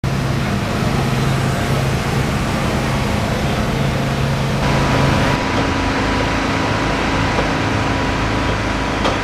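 A steady motor hum with a constant low drone over a background of noise; the hum shifts abruptly about halfway through.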